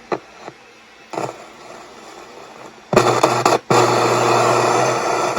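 Soundwave multiband transistor radio tuned to the empty 30–50 MHz police band: a few clicks from the controls, then, about three seconds in, loud static hiss with a low hum comes up from its speaker and holds, breaking off briefly once. No station comes through.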